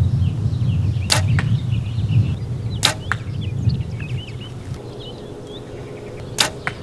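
Compound bow shot three times, each release a sharp snap followed about a third of a second later by a fainter click. The first shot comes about a second in, the second a couple of seconds later, the third near the end.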